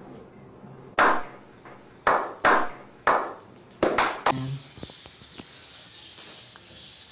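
Slow clapping: single loud hand claps, each with a short echo, about a second apart at first and then quickening, about seven in all. The clapping stops about four and a half seconds in, leaving faint steady background noise.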